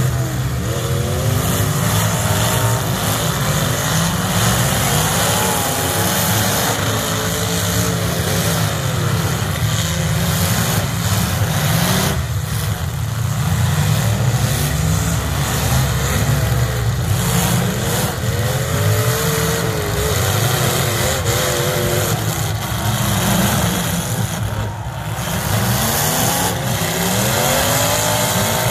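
Several demolition derby stock car engines running together, revving up and down repeatedly over a heavy, continuous low rumble.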